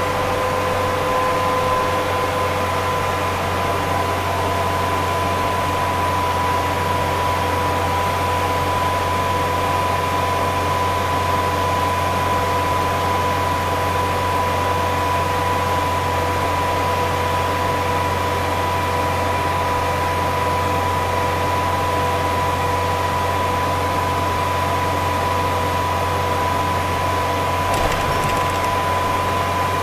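Steady cab noise of a vehicle cruising at highway speed: a constant engine hum and tyre and road noise, with a steady high-pitched whine over it.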